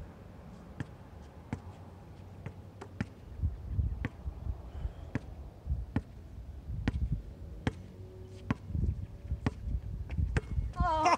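Basketball bouncing on an outdoor hard court, sharp irregular bounces about once a second, with wind rumbling on the microphone. A voice starts near the end.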